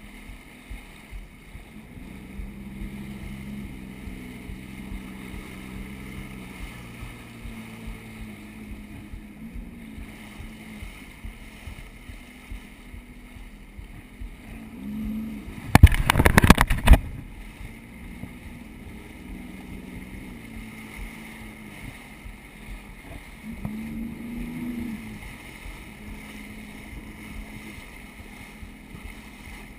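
Jet ski engine running steadily, its pitch rising and falling a few times with the throttle, with rushing water. About halfway through comes a loud burst about a second long.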